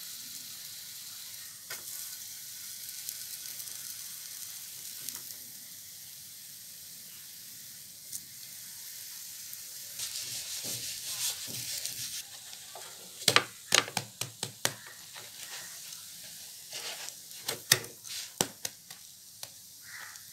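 Batter-dipped bread slices frying on a flat non-stick pan, a steady sizzle as their edges are fried. In the second half come a run of sharp knocks and clicks as the slices are handled and turned on the pan.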